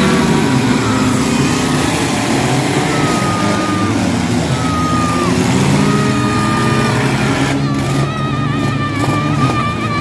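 Many demolition derby cars' engines running and revving together in a loud, continuous din. High drawn-out tones cut in over them every second or two, with a longer wavering one near the end.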